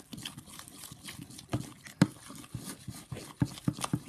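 A spoon stirring sticky slime in a bowl: irregular clacks and knocks of the spoon against the bowl, bunched together near the end.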